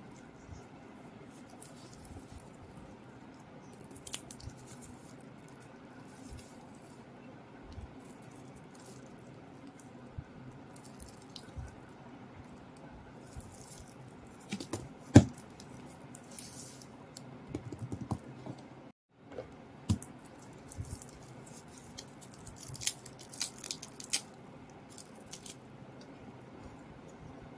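Plastic shrink-wrap on a paperback crinkling and rustling in scattered bursts as the book is handled, with one sharp knock about 15 seconds in. A steady low hum runs underneath.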